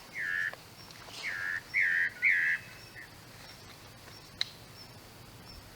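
Spot-breasted parrotbill singing: one phrase of four short whistled notes in quick succession, the last two loudest. A single sharp click comes about four and a half seconds in.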